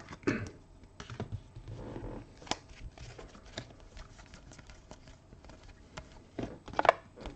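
A stack of Topps Premier League Platinum trading cards being handled, cards sliding and flicking against each other as they are moved one at a time from front to back of the stack. The result is a run of light, irregular clicks and rustles, with a few louder clicks near the end.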